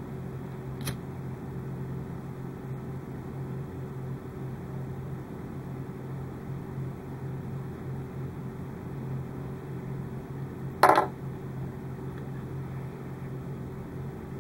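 Steady low electrical hum in the room, with a faint tick about a second in and a louder, short sharp click about eleven seconds in from small wires and parts being handled.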